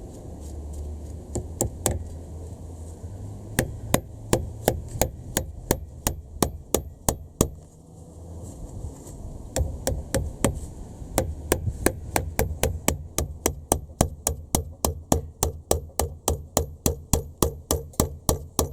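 Hammer tapping a pin punch to drive a steel roll pin into the shifter rod joint, metal striking metal. The strikes are irregular at first, pause briefly, then run on as a steady series of about three taps a second.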